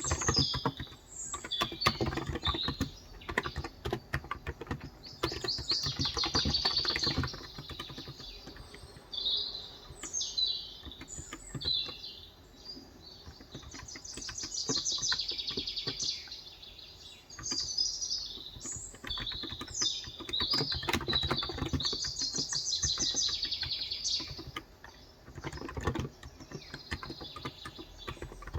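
Typing in bursts on a Cox Endeavour 35g electro-capacitive tenkeyless keyboard, with short pauses between runs of keystrokes. Birds chirp and trill throughout, with longer trills now and then.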